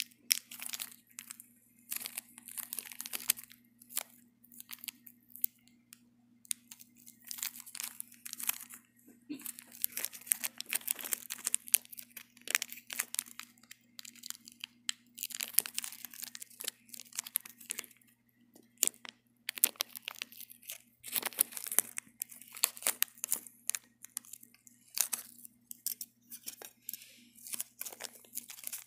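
Packaging being worked open by hand: irregular crinkling, crunching and tearing, in quick bursts with short pauses, as parts of a model train car are pried out.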